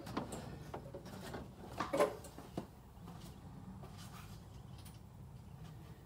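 A few light clicks and knocks of parts and tools being handled while a rocker arm goes back onto the engine's valvetrain, the loudest about two seconds in, over a faint low hum.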